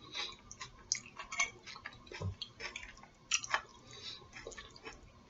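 Close-miked chewing of salad: irregular small crunches and wet mouth clicks, about two or three a second.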